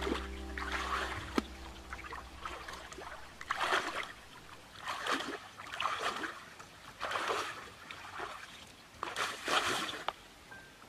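Muddy shallow water splashing and sloshing as a person gropes through it by hand and wades in it: a series of irregular splashes, each lasting under a second.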